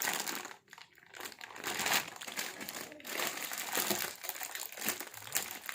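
Packaging crinkling irregularly as the unboxed part is handled, starting about a second in and going on continuously.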